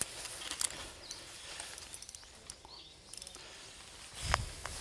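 Quiet riverbank ambience with scattered small clicks and rustles from an angler working his rod and line at the water's edge, and one short, louder thump about four seconds in.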